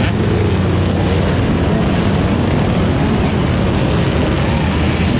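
Dirt bike engines running together in a steady, loud drone.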